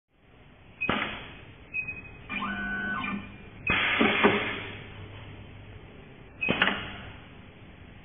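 Rotary knife cable stripping machine working on a cable: sharp clacks with ringing tails, a brief steady motor whir, and a louder, longer mechanical burst midway while the cable is held in the cutting head.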